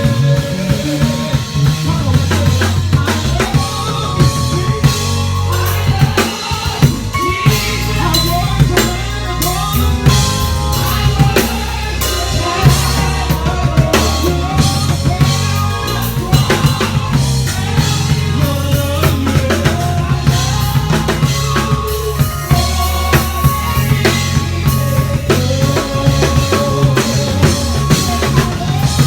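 Gospel band playing: bass guitar holding a loud low line under a drum kit's kick, snare and rimshots, with keyboards carrying the melody above.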